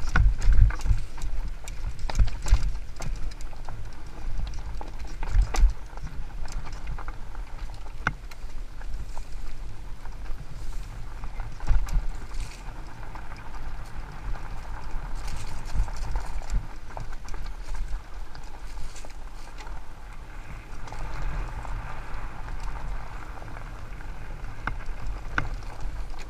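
Fat-tyre mountain bike descending a rough dirt and rock singletrack: tyres running over the ground with frequent knocks and rattles from the bike over bumps, over a steady low rumble.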